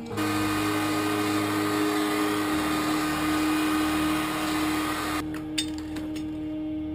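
Electric heat gun blowing hot air onto a starter motor's metal end housing, a steady fan rush that shuts off about five seconds in, followed by a single sharp knock. Background music with a held tone runs beneath.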